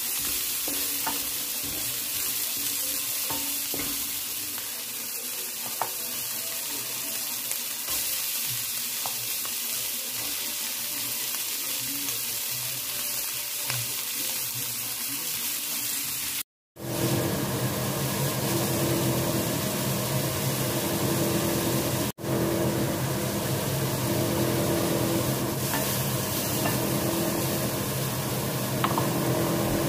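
Meat and onion sizzling in a stainless steel Saladmaster pan while a wooden spatula stirs and taps against it. After a cut about halfway through, a louder steady hum runs over the sizzling.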